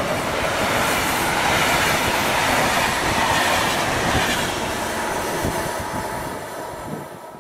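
Passenger coaches rolling past on the rails, a steady rumbling rush with a few sharp wheel clacks. The noise fades away over the last couple of seconds as the train moves off.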